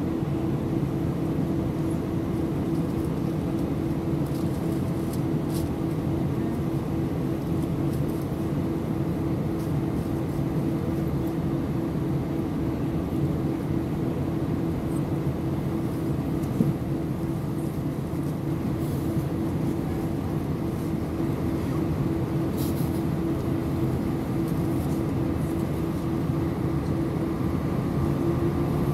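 Airbus A319 cabin noise from a window seat over the wing during descent: the steady rush of the engines and airflow with a constant low hum, unchanging throughout.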